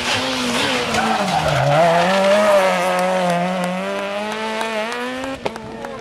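Peugeot 207 rally car's engine at high revs: the revs drop sharply about a second and a half in, then rise steadily as it accelerates past.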